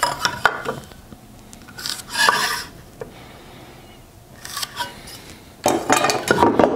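A marking tool scraping and rubbing along a wooden timber during layout, with light metallic clinks, in several short bursts with pauses between; the busiest stretch comes near the end.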